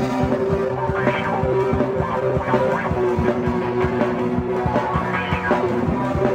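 Alternative rock song starting abruptly: guitars and bass over a steady drum beat.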